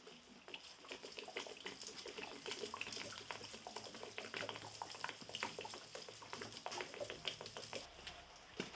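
Water splashing and gurgling out of the bunghole of a new 100-litre oak wine barrel as the barrel is tipped to empty it, draining the water used to swell the staves tight. The pouring dies away near the end.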